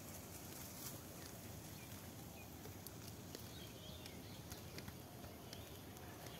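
Faint outdoor rural ambience: a steady low hiss with scattered faint ticks and a few short, high chirps.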